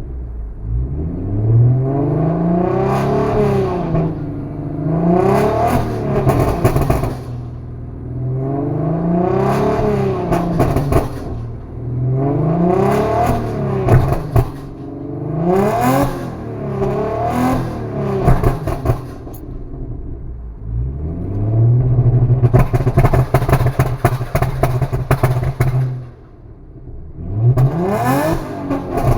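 Audi S4 B8's supercharged 3.0-litre V6 through a straight-piped exhaust, revved up and let fall again and again. Bursts of crackles and pops on the overrun as the revs drop.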